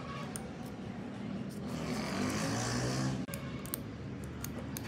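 An engine running with a steady low hum, swelling with a hiss about halfway through that cuts off suddenly, followed by a few light clicks.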